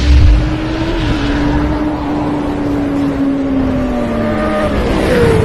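Motorcycle engine sound effect: a loud low boom at the start, then a held engine note over a rushing hiss that slowly sinks in pitch, with a higher note coming in near the end.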